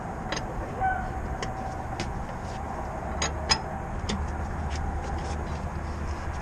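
BMW E46 325xi being driven, heard from a camera behind the tyre in the wheel well: steady low road and tyre rumble, with a few short sharp knocks, the loudest about three and a half seconds in.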